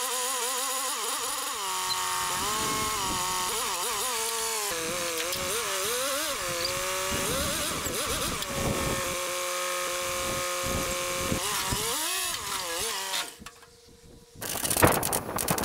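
Forklift engine running, its pitch rising and falling as the throttle is worked while the forklift pushes a truck axle into place. Near the end the engine sound stops, and after a brief lull there is sharp metallic clatter.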